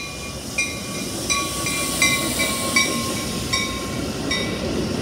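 Metra bi-level commuter train, cab car leading, rolling slowly into the station to stop, its wheels rumbling on the rails. Over it a bell rings in short steady strokes, about one every three-quarters of a second.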